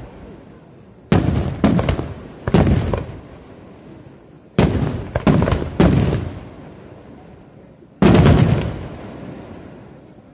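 Aerial firework shells bursting: a run of three sharp bangs about a second in, three more around the middle, and one single loudest bang near the end, each rolling away in a long echo.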